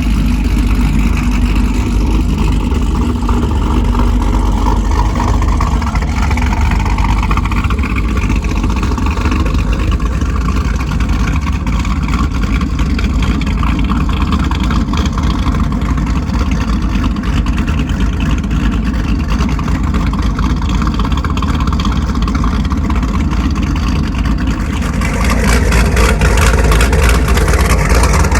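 Modified Pontiac G8's V8 engine running loud through its exhaust, getting louder and harsher about 25 seconds in.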